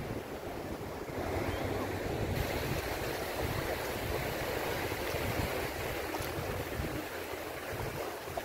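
Sea surf washing on a beach, a steady rushing noise, with wind buffeting the microphone.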